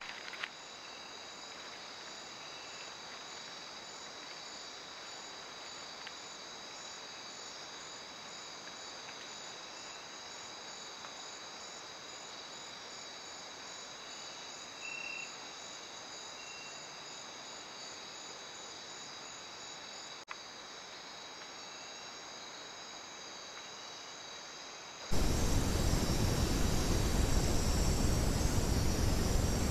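Night insect chorus, crickets trilling steadily at a high pitch, with one short higher call about halfway through. Near the end it gives way abruptly to a loud, even hiss.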